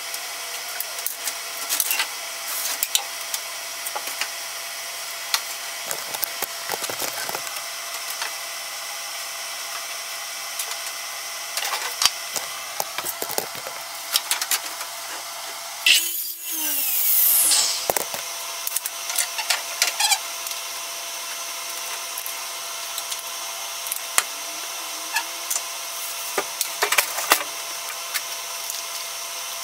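Boards being handled on a saw table, with scattered knocks and clicks. About halfway through, a Craftsman radial arm saw runs for about two seconds through a cut, its pitch dropping as the blade winds down.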